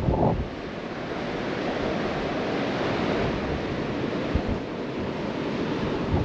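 Strong wind blowing across the camera microphone: a steady rushing with irregular low buffeting gusts, the strongest right at the start.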